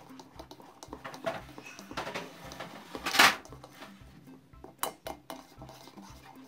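A whisk clicking and scraping against an enamel bowl as it beats a thick foamy mixture, with one louder scrape about three seconds in.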